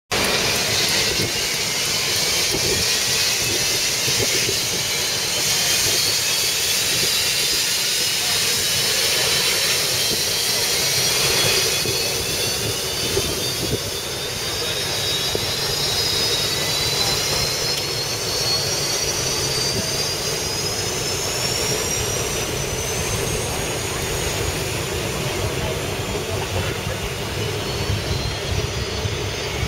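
Turbine engine of an H1 Unlimited hydroplane running loud and steady, its high whine slowly climbing in pitch as the boat pulls away from the dock.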